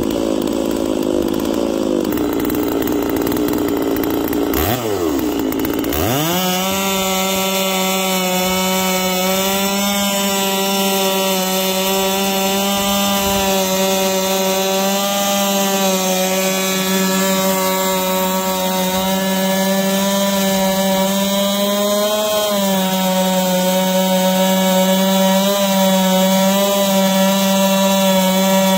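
Holzfforma G660 two-stroke chainsaw (a Stihl MS660 clone) on a Norwood PM14 chainsaw mill. It runs slow for the first few seconds with a quick blip about five seconds in, then revs to full throttle about six seconds in. It holds a steady high pitch as it rips lengthwise through an eastern red cedar log.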